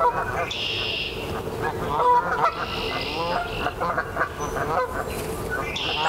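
A group of Canada geese honking over and over, their calls overlapping. Smaller birds sing three short, high-pitched bursts above the honking.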